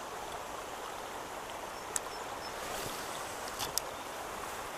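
Steady hiss of light rain falling on the pond and bankside vegetation, with a sharp click about two seconds in and two more a little over a second later.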